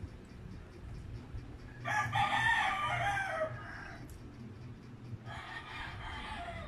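A rooster crowing twice: a loud crow about two seconds in, then a fainter one near the end, each dropping in pitch at its tail.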